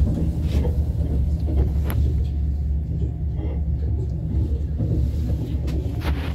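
ES2G Lastochka electric train running, heard from inside the passenger car: a steady low rumble with a few sharp clicks from the running gear.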